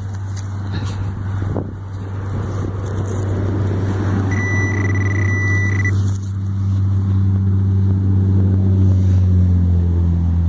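Steady low engine hum that grows louder over the last few seconds, with a single high-pitched electronic beep lasting about a second and a half around the middle.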